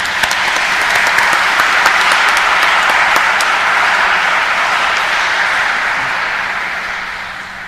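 Congregation applauding, building up in the first second and fading away near the end.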